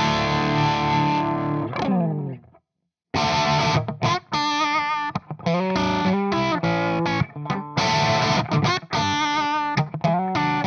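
Crunchy distorted electric guitar loop, a Fender Stratocaster through a Marshall JCM800 amp profile into a simulated Celestion 4x12 cabinet. A held chord rings out and fades about two seconds in, there is a short gap of silence, and the loop starts again through a Celestion G12M Greenback 4x12 closed-back cab impulse response.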